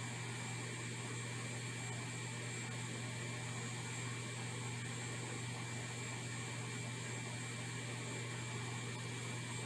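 Steady low hum with hiss and a faint thin high tone, unchanging throughout, like a small fan or electrical hum; no separate sound from the soldering stands out.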